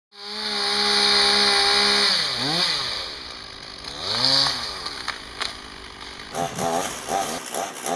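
Chainsaw running at high revs cutting spruce, its engine pitch dipping and recovering twice as the chain loads up in the wood.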